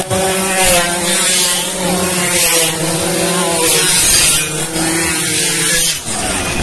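A pack of racing pasolas (motor scooters) accelerating hard past on a dirt track just after the start, engines revving high and shifting in pitch. There are louder rushes as riders go by, about two and a half and four seconds in.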